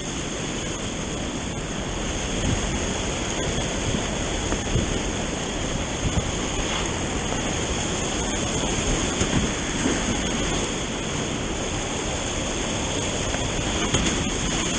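Steady rushing of moving river water, a loud, even wash with a few faint ticks and no break.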